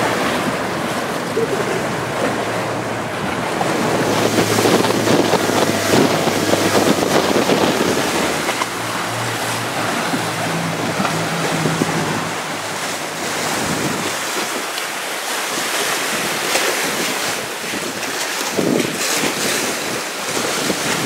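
Inflatable motorboat underway: water rushing and splashing along the hull and wind buffeting the microphone, over the boat motor's low steady hum. The hum rises in pitch about eight seconds in and drops away a few seconds later.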